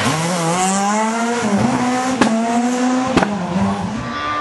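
Škoda Fabia S2000 rally car's four-cylinder engine at high revs, passing close by. Its pitch climbs, dips briefly at a gear change about one and a half seconds in, then climbs again. Two sharp cracks come about two and three seconds in.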